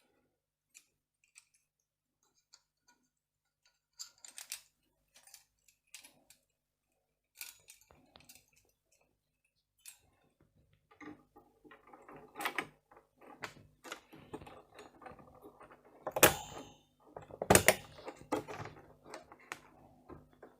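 Computer parts being handled and pressed into place on a motherboard: scattered light plastic clicks and rattles, busier in the second half, with two loud sharp snaps near the end as parts lock in. A faint steady low hum runs under the second half.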